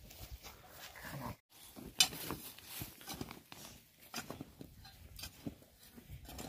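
Short-handled hoe scraping and chopping dry soil, pulling earth over a straw-lined pit of radish greens buried to ferment into sinki. Irregular scrapes and knocks, with one sharp knock about two seconds in.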